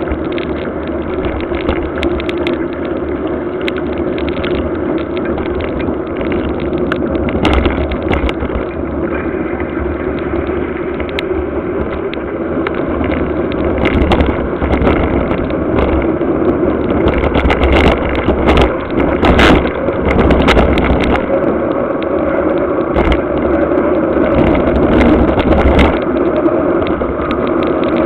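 Mountain bike ridden fast along a wet paved road, heard from a camera mounted on the bike: continuous tyre noise and wind rush, with scattered knocks and rattles from bumps. It grows louder about halfway through.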